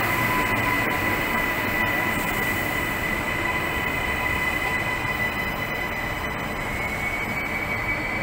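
Electric commuter trains in an underground station: one pulling out while a Queensland Rail New Generation Rollingstock train runs in along the platform. A steady rolling rumble with a high-pitched whine throughout.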